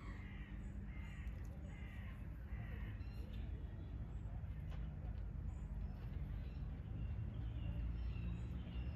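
A bird calling repeatedly, a run of harsh calls about one a second in the first few seconds that grow fainter later, over a steady low rumble.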